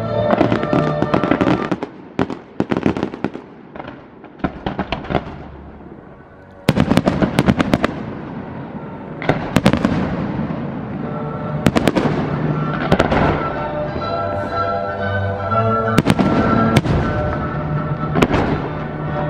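Fireworks going off: a run of sharp bangs and crackling bursts, quieter for a few seconds early on and then heavier bangs every second or two, over music.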